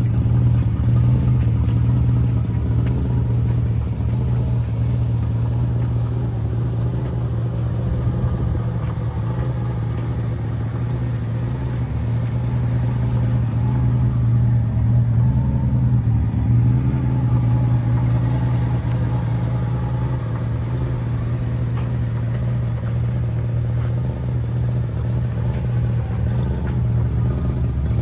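1967 Ford Mustang's engine idling steadily: a low, even rumble that stays the same throughout.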